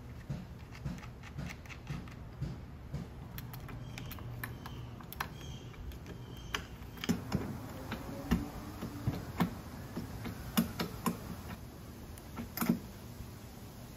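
Irregular light metallic clicks and ticks from a nut being threaded onto a mounting bolt and turned with a small wrench. Sharper, louder clicks come in the second half.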